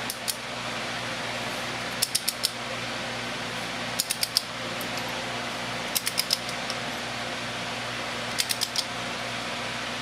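Socket ratchet wrench clicking in short runs of about four clicks, roughly every two seconds, as the differential's lower bolt is run in and tightened toward its 17 foot-pound torque spec. A steady hum runs underneath.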